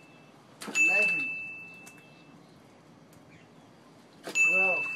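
Two counting cues, one about a second in and one near the end: each is a ding, a single bright bell-like tone that rings on for about a second and a half, with a voice calling out a number over it as the fish tally goes up by one.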